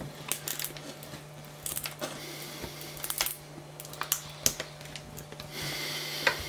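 Irregular light clicks and knocks of a hard plastic 3D-printed part being gripped and tugged on a glass build plate, with a short scrape near the end. A steady low hum runs underneath.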